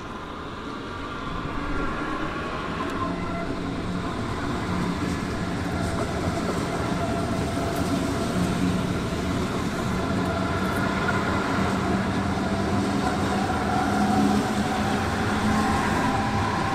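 A train running through the station: a steady rumble with several held, slightly wavering whining tones over it, swelling a little in the first couple of seconds and then staying even.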